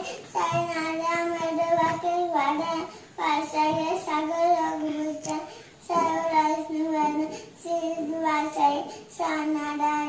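A young boy singing without accompaniment, in short phrases of long held notes.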